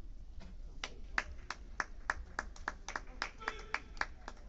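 Sparse hand clapping from a few spectators, separate claps about three a second, starting about a second in: applause for a point awarded in the kendo bout.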